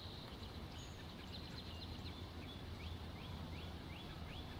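A bird calling a run of short, repeated rising notes, quickening to about three a second in the second half, over a faint low steady rumble.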